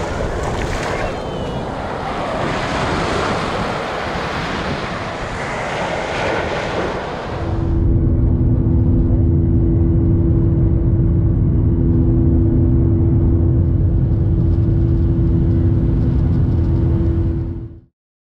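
Pacific surf breaking and washing up a sandy beach as a rushing noise. About seven seconds in this gives way to the louder, steady drone of an airliner's turbofan engines heard from inside the cabin, a low rumble with a steady two-note hum. It cuts off abruptly near the end.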